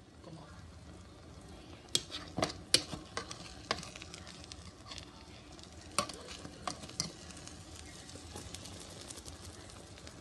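Beaten eggs and onion frying in butter in a pan: a steady sizzle with scattered sharp pops and crackles, clustered a couple of seconds in and again about six seconds in.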